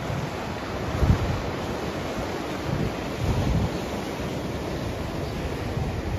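Stormy surf breaking and washing over shoreline rocks, with wind blowing on the microphone. The rush surges about a second in and again around three and a half seconds.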